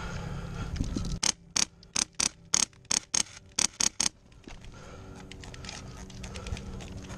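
Airsoft gunfire: a quick, uneven string of about a dozen sharp snaps over some three seconds, starting about a second in, with a few fainter snaps near the end.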